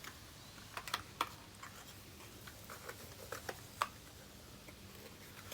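Faint, irregular clicks and taps from a small plastic toy being handled and fiddled with.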